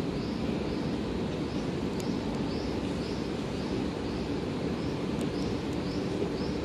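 Steady low rumble of railway station noise, with a short high chirp repeating about twice a second over it.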